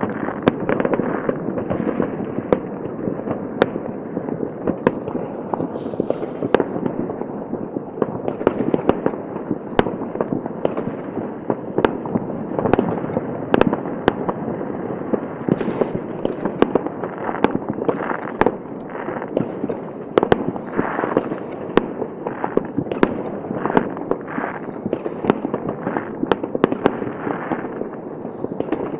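Many New Year's fireworks going off at once without a pause. A continuous rumbling, crackling din is pierced by frequent sharp bangs, often several a second.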